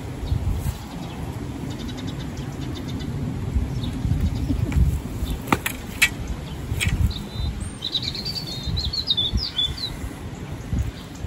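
A small bird twittering in a quick run of high chirps in the second half, over an uneven low rumble, with a few sharp clicks around the middle.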